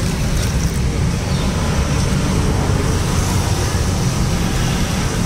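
Steady low engine rumble that holds at one level, with no clear events.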